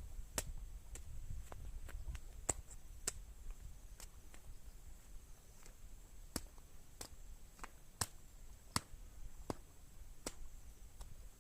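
Faint, sharp clicks at irregular intervals, about one a second, over a steady high-pitched hum.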